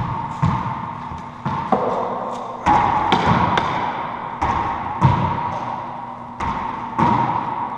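Racquetball play: about ten sharp smacks of the hollow rubber ball coming off racquet strings, walls and floor at uneven intervals. Each smack rings briefly in the enclosed court.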